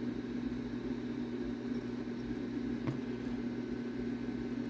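Steady low hum with a fan-like hiss, and one faint click about three seconds in.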